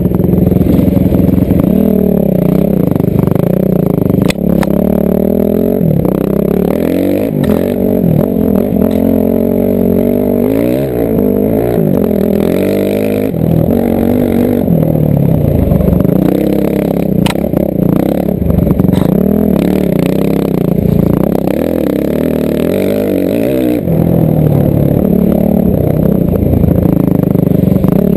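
Enduro dirt bike engine heard close up from onboard, revving up and falling back again and again as the bike is ridden along a trail, with a few sharp knocks from the bike over rough ground.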